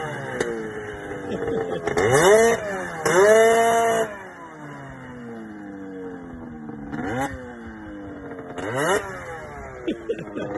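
Ski-Doo Summit snowmobile engine revving in repeated throttle blips, each a quick rise and fall in pitch. A longer pull is held high about three to four seconds in, then the engine note falls away and runs quieter, with two shorter blips near the end.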